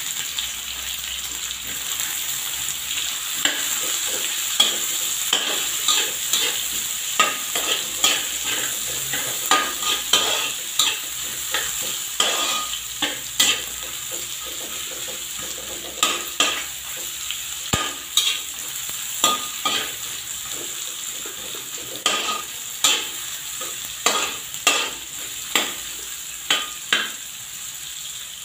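Sliced red onions and garlic sizzling in hot oil in a metal wok, with a steady hiss. They are stirred with a metal spatula that scrapes and clacks against the wok many times.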